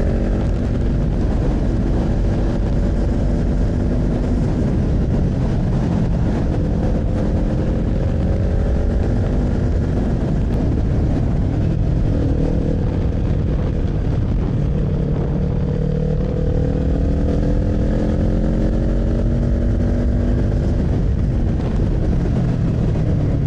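Kawasaki Z400 parallel-twin engine on the move: the revs climb several times as it accelerates and drop back near the end, over a steady low rush of riding noise.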